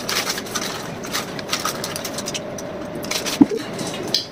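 Lay's potato chip packets crinkling and chips crunching as they are eaten, in quick irregular crackles, with one louder crackle a little over three seconds in.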